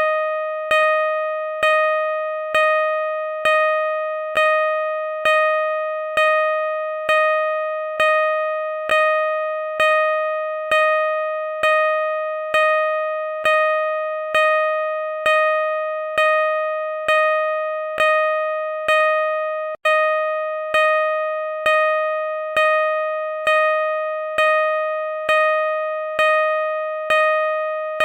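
Car parking sensor beeping at a steady, slow rate, a little over one beep a second. Each beep is a single mid-pitched tone that fades away until the next, and there is one momentary break about twenty seconds in.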